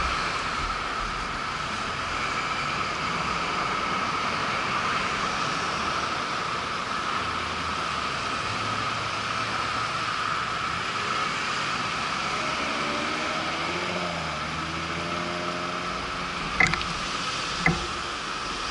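Steady rushing road and wind noise from a bicycle ride, with a motor vehicle's engine passing about two-thirds of the way through and two sharp clicks near the end.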